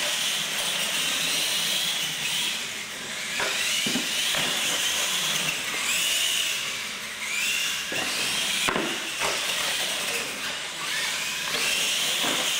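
Electric R/C monster trucks racing across a concrete floor: a high motor and gear whine that rises and falls as they accelerate and ease off, over a steady hiss. A few sharp knocks as the trucks hit the ramps or land, the sharpest about two-thirds of the way through.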